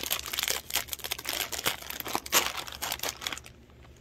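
Plastic snack-chip bag crinkling and tearing as it is opened and handled: a dense run of crackles that stops about three and a half seconds in.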